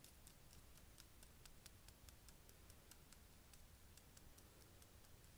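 Faint, quick ticking of fingers and fingernails working against each other close to the microphone, about five small clicks a second over a low hum.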